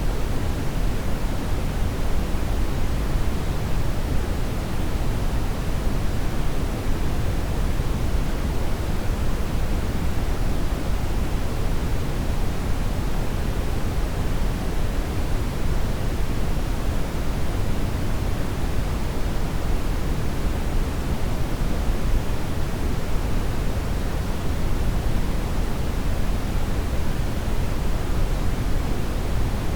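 Steady brown noise: an unbroken, even hiss, strongest in the low range and thinning toward the top.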